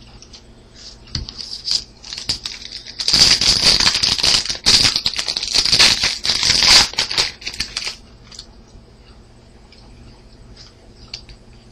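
A wrapped trading-card pack crinkling and tearing as it is opened: a dense crackle that starts about three seconds in and lasts about five seconds, with small rustles and clicks before and after.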